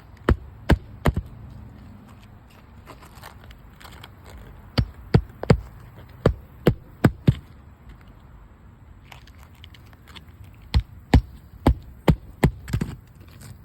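Repeated sharp knocks in three bursts of several blows each, about two to three a second, with short pauses between the bursts.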